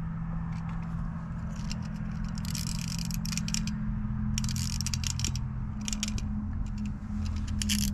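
Small plastic wind-up toy being handled and wound, its gears clicking in several short ratcheting bursts. A steady low hum sounds underneath.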